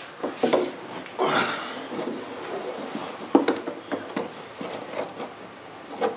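Thin wooden sticks being slid into a fiberglass shell and knocked against a light-wood bulkhead while they are test-fitted. The sound is a few light wooden clicks and knocks, with a longer scraping rub about a second in.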